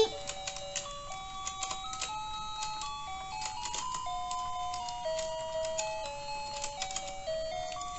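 Let's Go Fishin' toy fishing game playing its tinny electronic tune, one plain note at a time stepping up and down, as the pond turns. Frequent small plastic clicks and taps run through it from the turning board and the rods.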